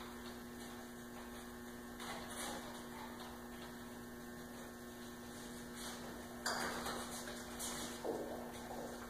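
Steady electrical mains hum, with a few brief rustles and soft knocks over it, the loudest after about six seconds.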